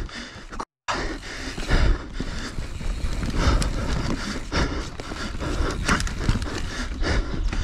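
Riding noise from a mountain bike on a rough enduro descent: a steady rush of wind and tyre noise with frequent knocks and rattles. The sound cuts out completely for a moment just under a second in.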